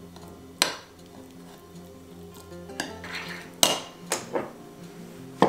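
Small metal spoon stirring a thick spice paste in a ceramic bowl, clinking against the bowl about five times, loudest about two-thirds of the way in, with some light scraping.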